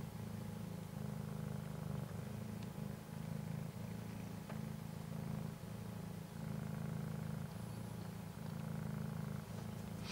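Mother cat, a long-haired silver Persian type, purring steadily while her newborn kittens nurse; the purr swells and dips with each breath, about once a second.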